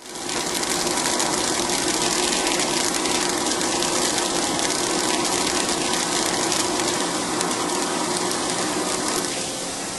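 CNC machine running steadily: a continuous hissing rush with a steady hum underneath, easing slightly near the end.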